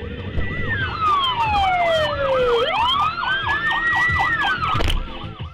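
Emergency vehicle siren sounding two tones at once: a slow wail that falls in pitch and then rises again, under a fast warble repeating about four to five times a second. It stops about five seconds in.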